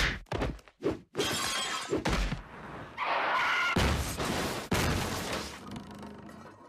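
Cartoon sound effects: a few quick blows, then a car smashing into a house with breaking glass and splintering wood, the debris crashing down and dying away.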